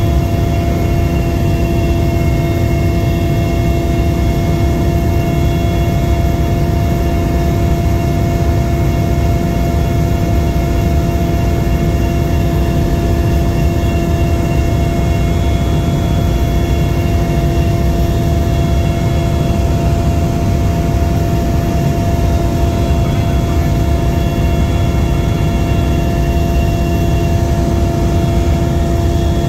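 Helicopter engine and rotor noise heard from on board: a loud, steady drone with several constant whining tones that stays unchanged throughout.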